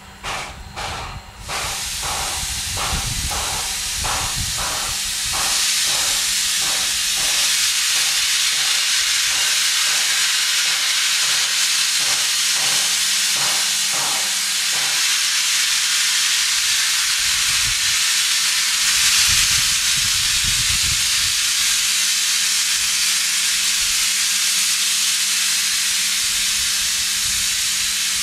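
Steam locomotive hissing loud and steady: a small 0-6-0 steam switcher, Ohio Power & Light No. 3, letting off steam while standing. The hiss grows louder about five seconds in and then holds. For the first half an even beat about twice a second runs under it, then dies away.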